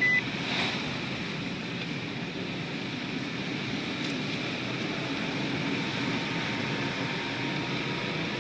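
Steady road and engine noise inside a car's cabin as it drives along a paved road. A short high beep sounds right at the start, followed by a brief click.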